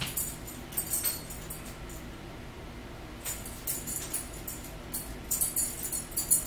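Grated Parmesan cheese being shaken out of a plastic shaker canister onto spaghetti: short bursts of dry, rattly hiss, about a second in, again around three seconds and once more near the end.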